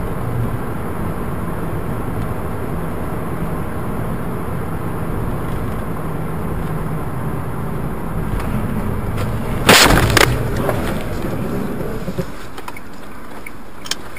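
Steady road and engine noise inside a car driving on snow, then a loud crash about ten seconds in, a double impact as the car collides with another car sliding across its path, followed by a few faint knocks.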